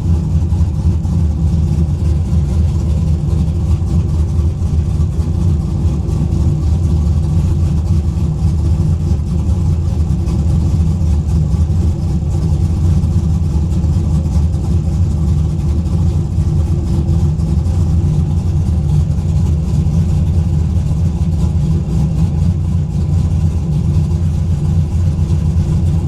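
LS-swapped Nissan 350Z's 5.3 L LC9 V8 idling steadily in neutral on fresh oil.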